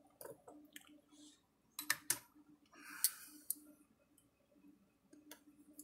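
Hand tools being handled on a workbench: a string of sharp clicks and clacks as pliers and parts are picked up and set down, the loudest pair about two seconds in, with a short rustling scrape around three seconds. A faint steady hum runs underneath.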